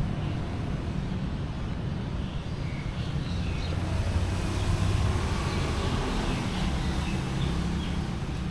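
Motor vehicle traffic: a steady engine rumble that swells slightly around the middle.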